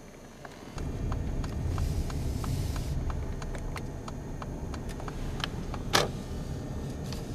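Steady low rumble of a car's engine and road noise heard from inside the moving car, starting suddenly about a second in, with a row of light ticks and one sharper click near the end.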